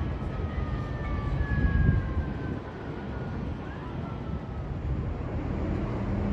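New York City subway train slowing down: the traction motors' whine falls steadily in pitch over a low rumble of wheels on rail.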